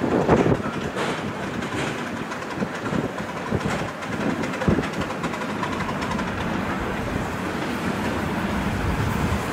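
Miniature steam locomotive hauling loaded passenger cars slowly along the track: wheels clicking and knocking over the rail joints, most in the first few seconds, over a steady hiss of steam.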